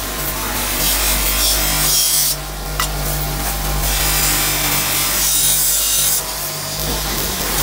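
Stainless steel ladle pressed against a spinning abrasive wheel: a rasping hiss of metal on the wheel in two long passes, the second longer, over the steady hum of the electric motor that drives it.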